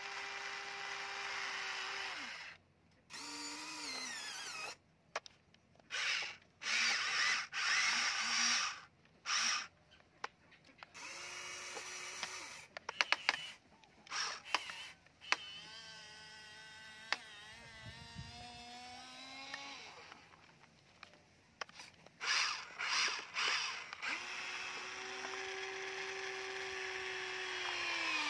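Small electric motors and gearboxes of a Huina remote-control toy excavator whining in repeated short bursts that start and stop every second or two, some sliding up or down in pitch, with a few sharp clicks in the middle and a longer unbroken run near the end.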